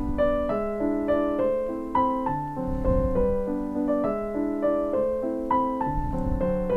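Background piano music: a gentle melody over chords, each struck note fading away.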